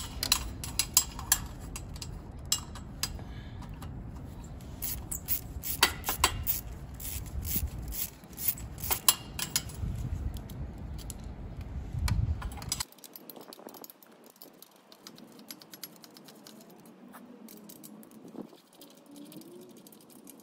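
A small hand ratchet clicking, with metal clinks from the socket and tools, as bolts are undone among the motorcycle's exhaust header pipes. The clicks come several times a second in uneven runs. About thirteen seconds in the sound turns much quieter, leaving only faint, scattered clicks.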